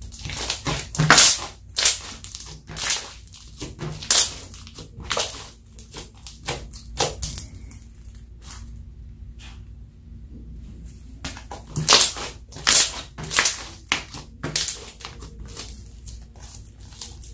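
Glossy clear slime being pressed flat, kneaded and stretched by hand, giving irregular wet squishes and sharp pops, with a quieter spell about halfway through.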